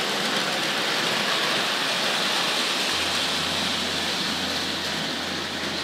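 Hornby Dublo A4 Pacific model locomotive, with its horseshoe-magnet motor, running with tinplate coaches on three-rail tinplate track: a steady rushing whirr of motor and wheels on the rails.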